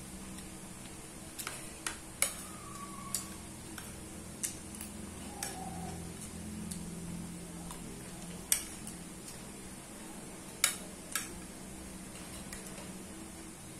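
Spoon clinking and scraping against a plate of fried rice while eating: about nine sharp, irregular clinks spaced a second or more apart, over a low steady hum.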